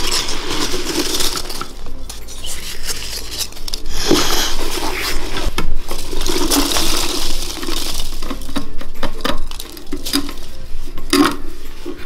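Rattling and clattering as a large clear jar of light pale-green pieces is tipped over and shaken out onto the table, with sharp clinks and knocks of the jar against the tabletop.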